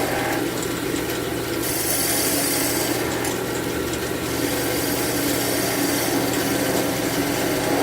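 Wood lathe running with a steady motor hum while a turning tool cuts into a spinning cherry chair leg, rounding it over. The scraping cutting noise comes and goes in stretches, strongest about two to four seconds in.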